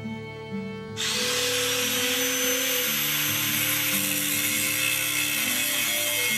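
Angle grinder grinding steel: a loud, steady hiss that sets in suddenly about a second in and holds. Music plays underneath.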